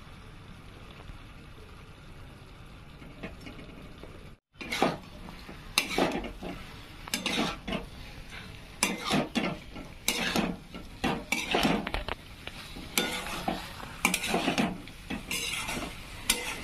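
Metal spatula stirring and scraping cream-coated cauliflower and masala around a metal kadai over a low sizzle, in repeated strokes about once a second. For the first four seconds only a faint steady sizzle is heard, before the stirring strokes begin.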